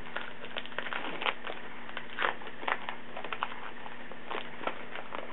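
Crinkling and crackling of a baseball card pack's wrapper being torn open and handled, in irregular short crackles over a steady hum.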